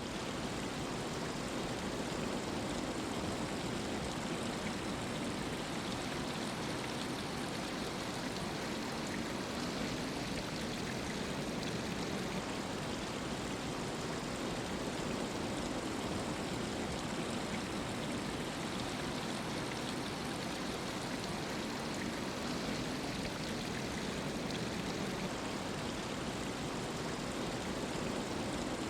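Groundwater seeping out of the subsoil and trickling, a steady, even rush of running water.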